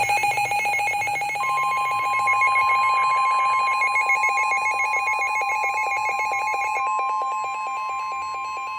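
Emergency alert tones: a fast-pulsing, trilling electronic alarm, joined about a second and a half in by a steady single-pitch tone, the 1050 Hz NOAA Weather Radio warning alarm that heads a weather warning broadcast.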